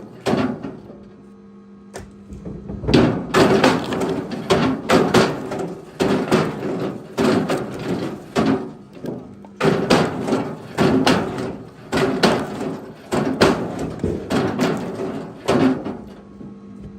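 Rapid, irregular wooden knocks and clatter of firewood pieces being handled and tossed, about three or four a second in two long runs, over a steady low hum.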